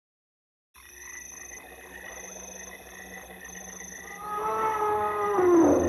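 Night-time bush ambience fades in after a moment of silence: insects chirping in a slow on-off pulse, with frogs calling. From about four seconds in, a louder drawn-out animal call rises over it and slides down in pitch near the end.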